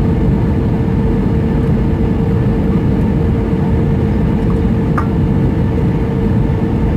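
Cabin noise of an Airbus A320 on approach: its jet engine and the rushing air make a loud, steady drone with a constant hum through it.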